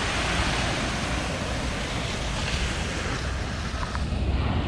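Ocean surf washing onto the beach in slow swells, with wind buffeting the microphone as a low rumble.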